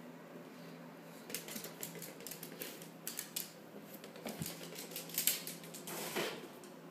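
A Shiba Inu's claws clicking and scrabbling on a hardwood floor as it chases a small soccer ball, in quick irregular clicks that start about a second in, with a louder knock a little past five seconds.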